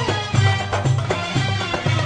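Background music with a steady beat and repeating bass notes.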